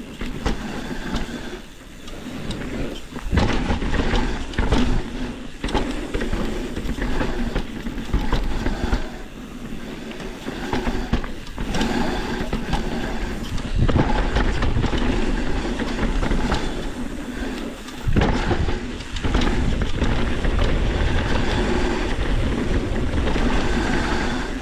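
Mountain bike descending a rough trail: tyres rumbling over dirt and rocks, with frequent knocks and chain and frame rattle over bumps, and wind on the microphone.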